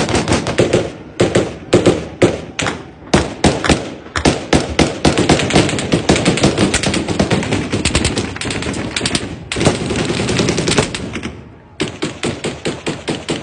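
Automatic gunfire: long, rapid bursts of sharp shots, then a short lull near the end and a steady string of shots at about five a second.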